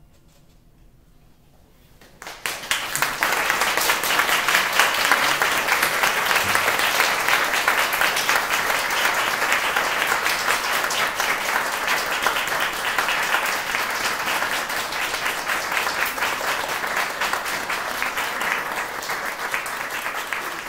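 A short hush, then a seated audience breaks into applause about two seconds in, clapping steadily and densely for the rest of the time.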